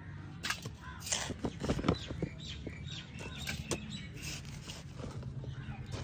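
Small metal hand trowel scraping and scooping loose potting soil in a fabric grow bag: a run of short scratchy strikes, thickest in the first couple of seconds, then lighter digging.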